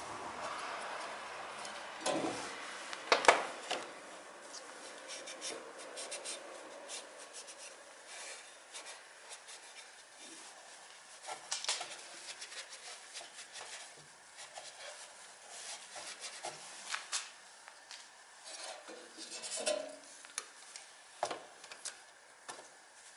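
Hand work on metal parts: rubbing, then scattered light clinks and knocks of tools and parts being handled, with the loudest knock about three seconds in.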